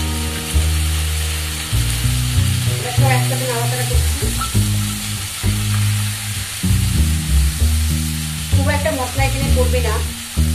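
Cucumber and potato pieces sizzling as they fry in a pan and are stirred with a spatula, over background music with low sustained notes.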